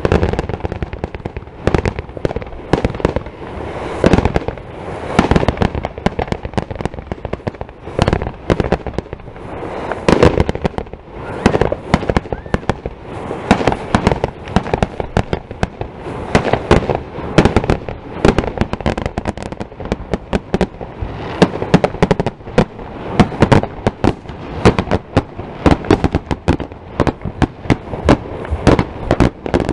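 Aerial fireworks going off: a dense, irregular run of sharp bangs and crackles, several a second, overlapping with no real pause.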